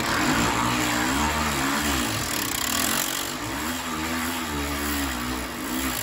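Steady mechanical whirring whose pitch wavers slowly up and down.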